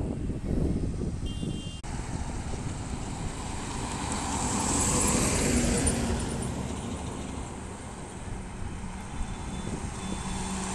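Highway traffic of heavy iron-ore tipper trucks passing over a steady low rumble; one pass swells louder about halfway through and then fades.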